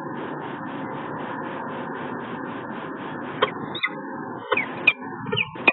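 Steady rushing hiss with a few sharp clicks and ticks in the second half.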